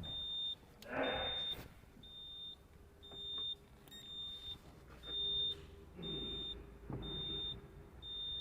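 A high-pitched electronic beeper sounding in a steady, regular rhythm, a little faster than once a second, with a short rustle of handling about a second in.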